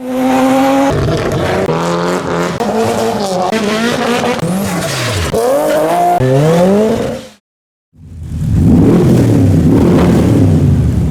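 Modified Japanese tuner cars' engines revving and accelerating hard, the pitch climbing and dropping again and again with throttle blips and gear changes. The sound cuts off abruptly about seven seconds in, and after a short gap another car revs and accelerates.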